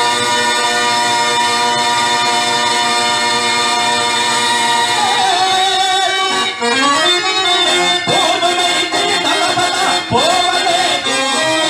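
Male voice singing a Telugu padyam (verse) in a drawn-out raga over harmonium accompaniment. Long held notes give way, about five seconds in, to a wavering, ornamented melody.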